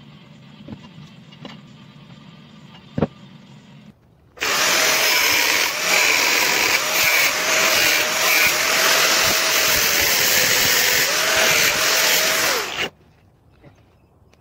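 Electric angle grinder running for about eight seconds, starting about four seconds in: a loud high hiss over a motor whine whose pitch wavers. It cuts off suddenly. A faint low hum and a single click come before it.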